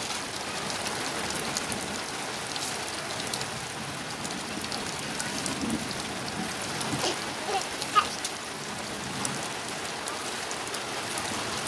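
Steady rain falling on a wet street, with short scrapes and knocks of a steel shovel working a pile of wet cement mix; the sharpest knock comes about eight seconds in.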